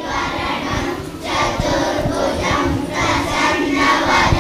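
A group of children chanting a Sanskrit shloka in unison, in short phrases with brief breaks between them.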